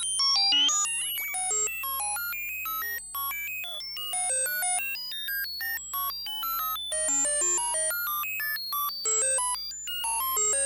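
High-pitched electronic synthesizer beeps: a rapid, random-sounding stream of short pure tones jumping between pitches, several per second, like computer bleeps, with a few quick rising sweeps about a second in.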